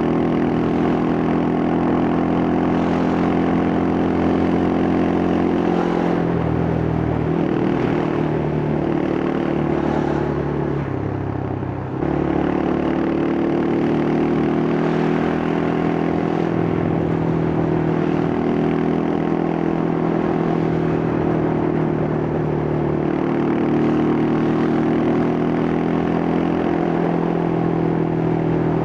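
Yamaha Scorpio's single-cylinder four-stroke engine and exhaust running on the move, a steady engine note. The note dips and climbs again about six to eight seconds in, and the sound sags briefly just before the middle, then comes back suddenly.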